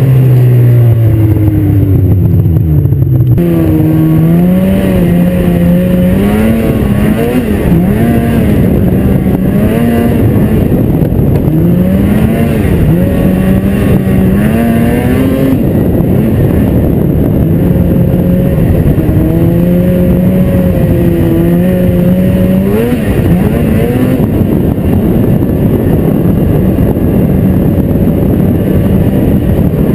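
Snowmobile engine running while the machine travels along a trail, its pitch dropping over the first few seconds and then rising and falling again and again as the throttle is opened and eased. A constant rushing noise runs underneath.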